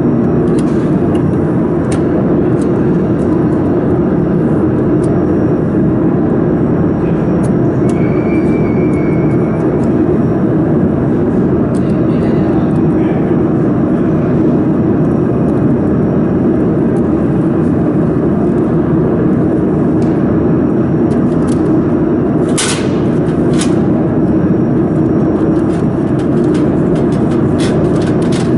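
Steady, loud mechanical noise of machinery or a fan running, with a few faint clicks and one sharper click about two-thirds of the way through.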